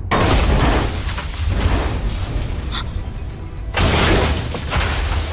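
A car crashing and rolling down a dirt slope: a sudden loud crash at the start, heavy rumbling and breaking, and a second loud crash nearly four seconds in.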